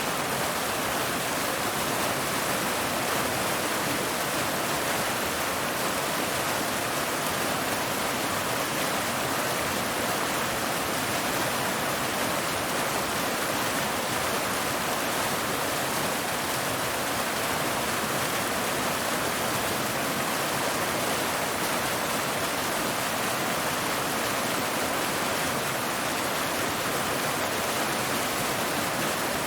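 Waterfall: falling water pouring steadily over rocks in an even, unbroken rush.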